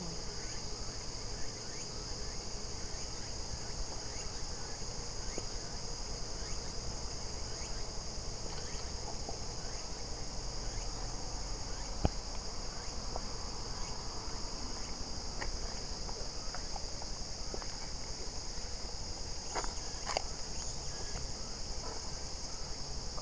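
Steady, high-pitched chorus of insects in the hillside vegetation, with a single sharp click about halfway through.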